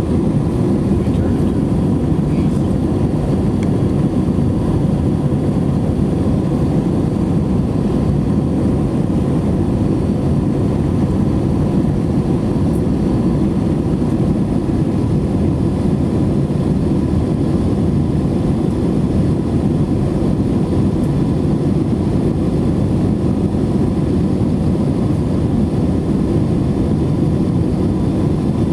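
Steady cabin roar inside an Airbus A321 in flight: low engine and airflow noise, with a faint steady hum on top.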